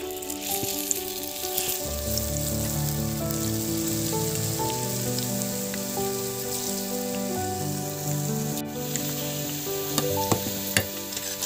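Batter-coated potato slices deep-frying in hot oil in a wok: a steady sizzle, with soft background music of held notes over it. A few sharp clicks sound near the end.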